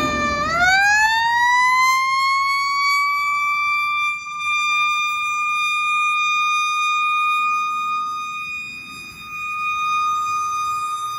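Fire truck siren sweeping up in pitch about half a second in, then holding one steady high wail.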